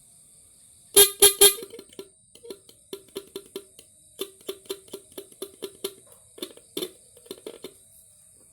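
Electric 'tet tot' car horn being sounded on test: three loud blasts about a second in, then a long run of quick short beeps, about four a second with brief pauses, on one steady pitch.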